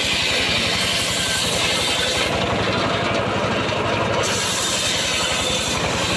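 An engine-driven wood saw running steadily and cutting timber. A fast, even engine beat sits under the noise of the cut.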